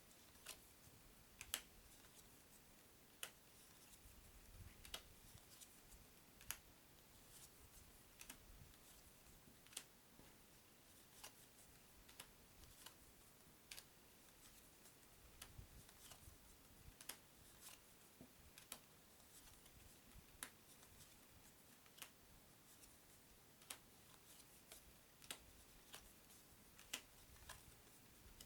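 Paper playing cards handled one at a time, each giving a faint, sharp click or snap, roughly one a second at an uneven pace.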